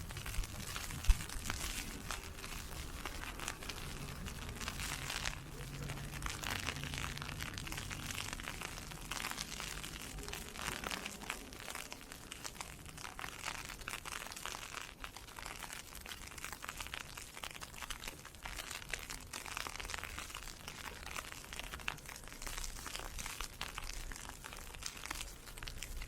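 Dense, continuous crackling and crunching from walking through a snowstorm of blowing ice pellets: pellets ticking and snow crunching underfoot. There is one sharp click about a second in, and a faint low hum for a few seconds early on.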